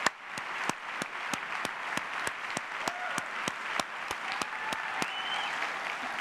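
A large audience applauding steadily, with one nearby pair of hands clapping sharply about three times a second above the crowd's clapping.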